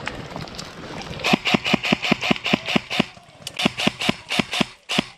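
Airsoft rifle firing two full-auto bursts, about seven shots a second, with a short pause between them; a faint rustling hiss comes before the first burst.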